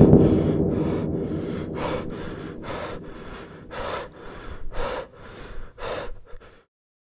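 A loud, rapidly pulsing low sound fades away over the first couple of seconds. Then a person gasps for breath five or six times, about once a second, and the sound cuts off suddenly a little after six seconds in.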